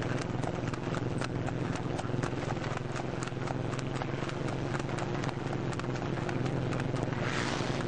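Ghourgusti horse trotting fast on a paved road while pulling a two-wheeled cart: a quick, regular clip-clop of hooves on the hard surface, with a steady low hum underneath.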